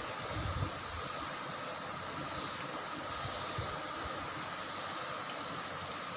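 Steady rushing hiss of a gas stove burner running under a steel kadhai, with a faint steady hum behind it and some low rumbling in the first second.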